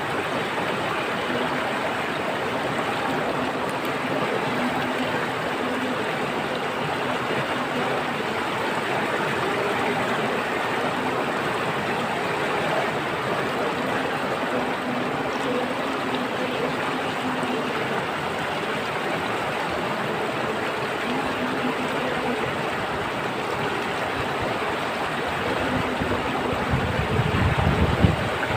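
Running water, a steady even rush like a stream, with a faint low hum that comes and goes. A brief low rumble swells up near the end.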